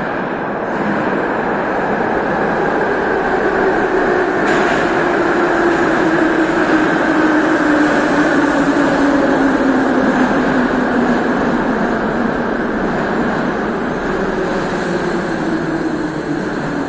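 Metro train running into the station with a loud rumble, its motor whine falling steadily in pitch as it brakes. A sharp sound about four seconds in.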